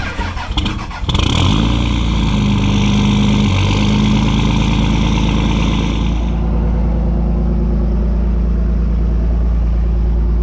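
Dodge Cummins inline-six turbo-diesel in a pickup cranking for about a second, then catching and running on a cold start in sub-zero weather; the owner says it is not happy. A hiss rides over the engine for the first few seconds and stops about six seconds in, leaving a steady diesel idle.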